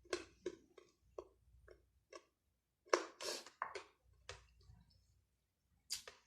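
Close-up mouth sounds of someone eating chicken adobo and rice: irregular wet lip smacks and chewing clicks. A longer, louder burst of eating noise comes about three seconds in.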